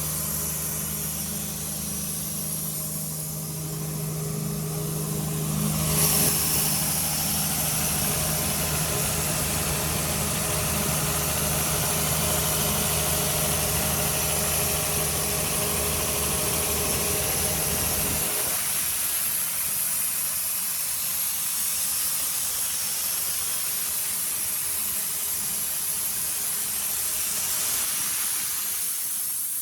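Ingersoll Rand 7/170 N mobile compressor's John Deere six-cylinder diesel running at a steady idle, with a hiss of rushing air joining about six seconds in. The low engine hum drops away about two-thirds of the way through, leaving the hiss.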